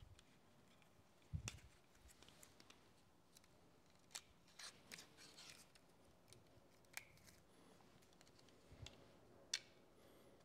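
Faint, scattered small clicks and rustles with near silence between them: an LED light pod being handled and its adhesive backing peeled off.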